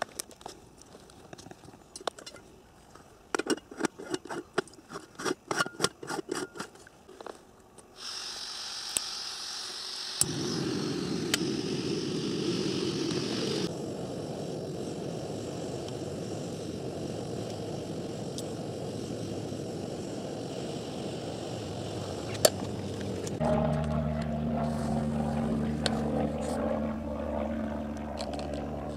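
Metal clinks and scrapes as an aluminium stovetop moka pot is screwed together. Then gas hisses from a small canister camping stove, and its burner lights with a steady rushing flame under the pot. Near the end a lower hum joins the flame noise.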